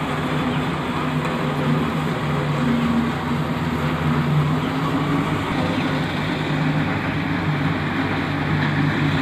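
A vehicle engine running steadily, a low even hum under a broad rumble.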